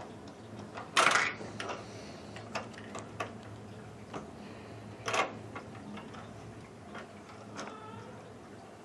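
Hard plastic Lego pieces clicking and knocking as a hand handles them: a series of sharp, irregular clicks, the loudest about a second in and again about five seconds in.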